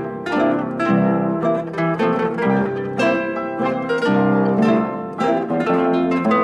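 Background music of plucked strings, quick notes picked one after another in a lively run.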